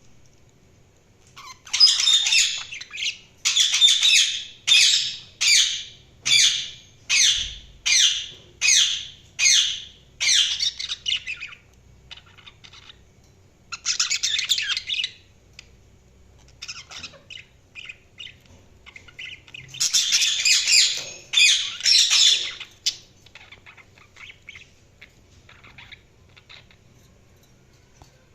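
Budgerigars calling: a run of loud, harsh chirps, about one every three quarters of a second, then a pause, another burst, and a second loud spell of chattering about twenty seconds in, with scattered softer chirps between and after.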